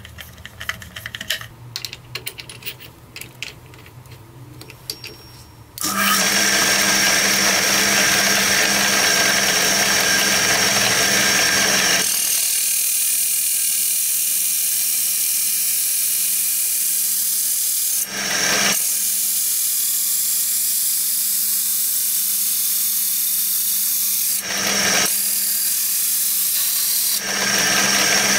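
A screwdriver turns a screw into wood with faint clicks and scrapes. About six seconds in, a drill press starts up and runs steadily with a hum and a high whine while its hole-cutting bit cuts through a wooden board and an abrasive cutting disc. The sound loses its low rumble about halfway through and breaks off briefly a few times.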